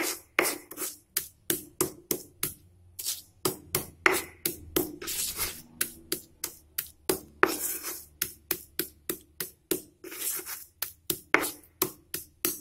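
Stone pestle pounding and grinding garlic in a stone mortar: a quick, rhythmic run of knocks at about three a second, some dragged into short gritty scrapes as the garlic is worked into a paste.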